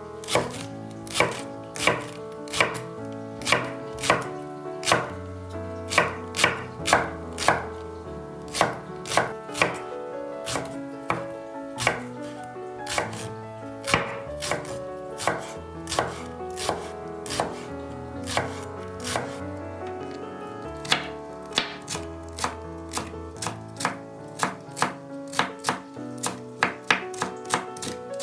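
Chef's knife slicing leeks on a bamboo cutting board: a steady run of sharp knocks of the blade on the board, about one to two a second. There is a short pause about two-thirds through, then quicker strokes near the end.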